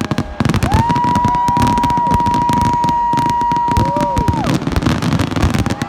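Fireworks popping and crackling over a crowd, with a long steady high tone held for nearly four seconds.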